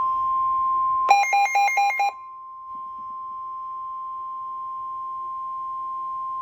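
Emergency alert attention tone: a steady single-pitch tone just above 1 kHz, the 1050 Hz warning alarm tone of NOAA Weather Radio, sounding ahead of a severe thunderstorm warning. About a second in, a burst of about five quick beeps alternating between two pitches sounds over it for about a second.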